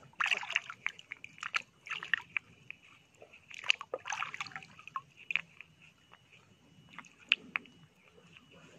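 Stream water splashing and sloshing as a hand rinses a handful of dark stones in a shallow stream. The splashes come thickly at first and thin out after about halfway, with one sharp splash near the end.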